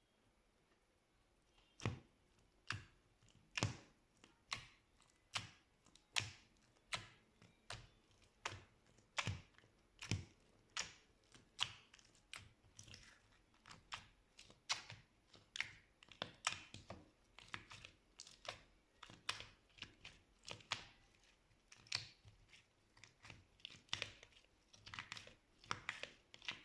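Slime being squished, giving a string of sharp clicking pops, about one a second, that come closer together near the end.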